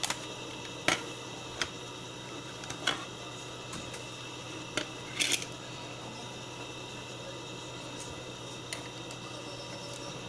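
Scattered small clicks and taps of plastic headset parts being handled during a repair, about nine in all and mostly in the first half, over a steady hiss.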